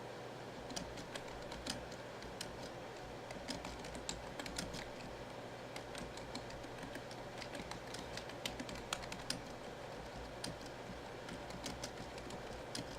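Typing on a computer keyboard: irregular runs of keystroke clicks, over a low steady hum.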